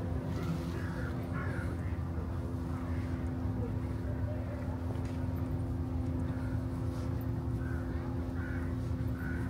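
A steady mechanical drone: a low rumble with two constant humming tones. Short, scattered calls sound faintly above it.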